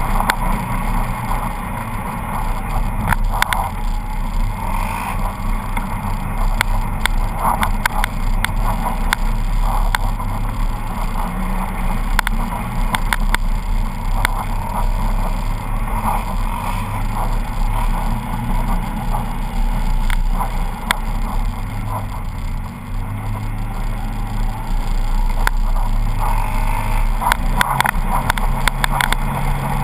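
Polaris RZR 800 side-by-side's twin-cylinder engine running under way, its pitch stepping up and down with the throttle, heard from the vehicle itself. Frequent short knocks and rattles come through it from the machine jolting over the track.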